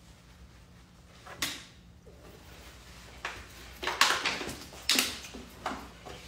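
Kitchen handling noises: a handful of short knocks and rustles as things are picked up and moved around on the counter, the loudest about four seconds in.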